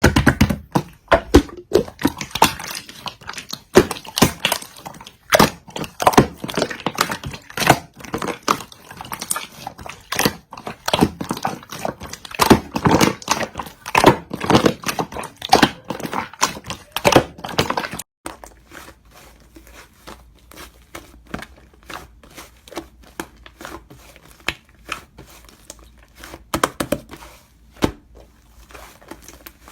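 Dense, rapid crinkling and crackling handling noise with many sharp clicks. It stops abruptly about two-thirds of the way through, giving way to much quieter, scattered clicks.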